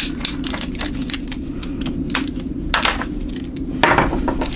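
Hands opening the plastic packaging of CMOS batteries: irregular crinkling, clicks and cracks, louder about four seconds in, over a steady low hum.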